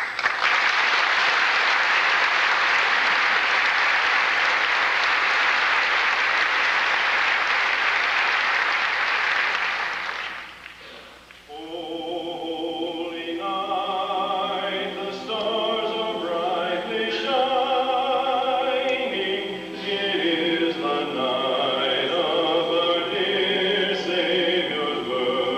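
Audience applauding for about ten seconds, dying away, then a men's barbershop chorus begins singing in close harmony, holding sustained chords.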